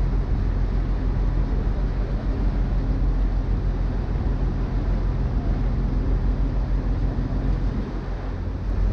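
A river cruise boat's engine running steadily: a low, even hum with no change in pace.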